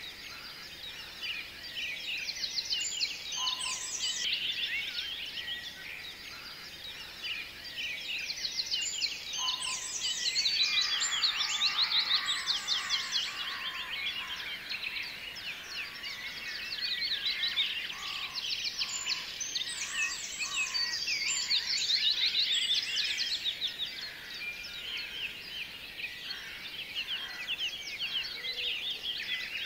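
A dense chorus of many small birds chirping and trilling together, swelling and fading in waves about every ten seconds.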